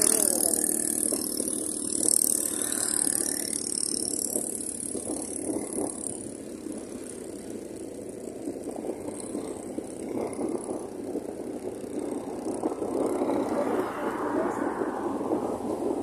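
Steady rushing noise of a moving vehicle on a road, with some rattling; loudest in the first couple of seconds.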